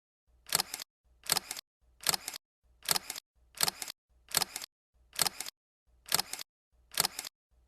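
Camera shutter sound effect, a crisp double click repeated evenly about ten times, roughly once every 0.8 seconds.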